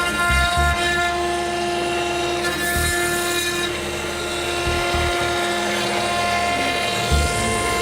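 CNC 3D engraving machine running: several steady whining tones that start, stop and change pitch every second or so, with a few short low thumps.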